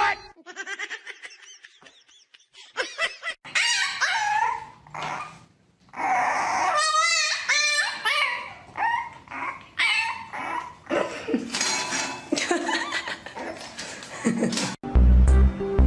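French bulldog puppy whining and yipping over and over, in wavering high-pitched cries with a few short barks mixed in.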